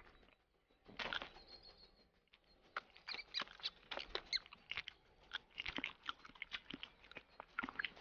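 Long-eared hedgehog biting and chewing a small lizard it has caught: quiet, irregular crunching clicks, a first few about a second in, then coming thick and fast from about three seconds in.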